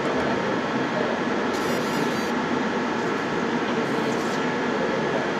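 Steady whirring hiss and hum of a running fiber laser marking machine, like its cooling fan, even in level throughout.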